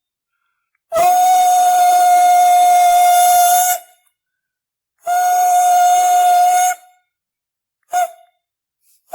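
Sofa legs squeaking as the sofa is scooted across a tile floor: three squeals at one steady pitch, a long one of about three seconds, a shorter one of about two seconds, then a brief chirp near the end.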